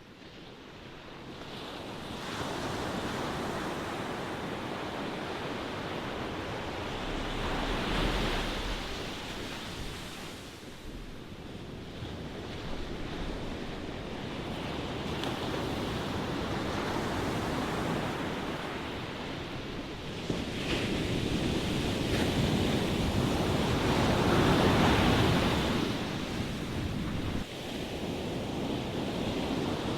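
Ocean waves washing in and breaking, the surf swelling and ebbing in slow surges, loudest about eight seconds in and again around twenty-five seconds in.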